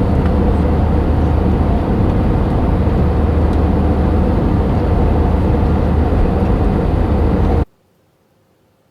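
Steady cabin noise of an Airbus A320 airliner in flight, a loud even rush with a strong low hum, cutting off abruptly near the end.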